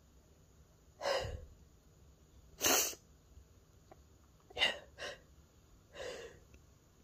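A person sneezing a run of short sneezes: five brief bursts, a second or two apart.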